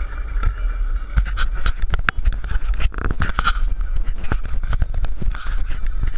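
Longboard rolling fast downhill on pavement, heard up close: a steady low rumble of wheels on the road, with frequent sharp clicks and knocks as the board and camera rig vibrate.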